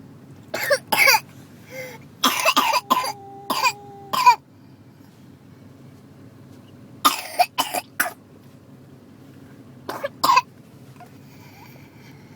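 A three-year-old girl with whooping cough (pertussis) coughing in four separate fits of two to five harsh coughs each, with quiet pauses between them. A steady held tone sounds for about a second during the second fit.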